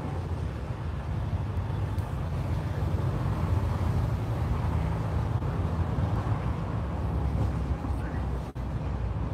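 Steady low rumble of outdoor background noise, with a brief dropout about eight and a half seconds in.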